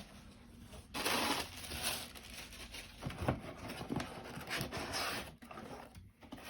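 Packaging being handled: a burst of rustling packing material about a second in, then a run of short knocks and rustles as parts and boxes are moved around.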